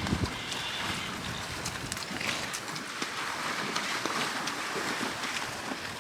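Ponies splashing and wading in shallow lake water, with irregular splashes over a steady wash of water sound and some wind on the microphone.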